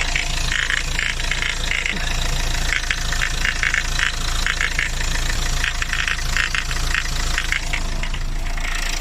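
Renault Laguna 3 engine idling, with an irregular, rapid crunching from the front of the engine. The owner traces it to the air-conditioning compressor's clutch, which he suspects is catching on its worn, rough magnetic ring.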